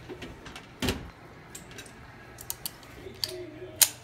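Glass display case being opened and a pistol lifted out: a sharp knock about a second in, a few light clicks and taps, and another sharp click near the end.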